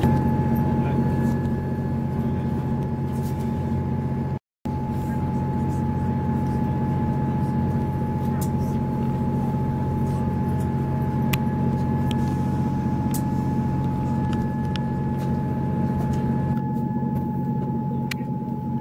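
Diesel passenger train running, heard from on board: a steady engine drone with a constant whine and occasional faint clicks. The sound cuts out completely for a moment about four and a half seconds in.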